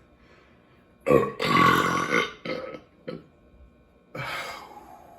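A man's loud, drawn-out burp starting about a second in and lasting about a second, trailing into a shorter burp. A quieter sound follows near the end.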